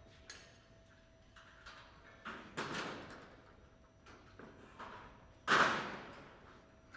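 A series of irregular knocks and thuds, each with a short echoing tail, the loudest about five and a half seconds in, over a faint steady tone.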